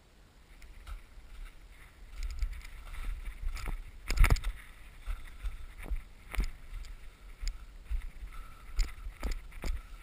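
Footsteps crunching through trampled snow at a walking pace, about two steps a second, starting about two seconds in, over a low rumble of wind on the microphone.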